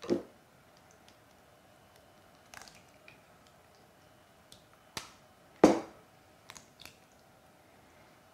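Fresh chicken eggs knocked and cracked on the rim of a stainless steel bowl: a few sharp knocks with small clicks of shell between them, the loudest a little past the middle.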